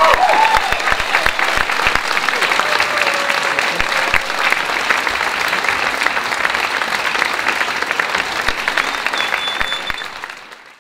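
Audience applauding, with a few cheers in the first second; the applause fades out near the end.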